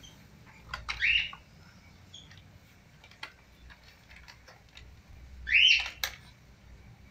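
A dog chewing and licking at a crinkly plastic snack wrapper, with scattered small clicks and crackles. Twice a short chirp rises and falls, about a second in and again near the end.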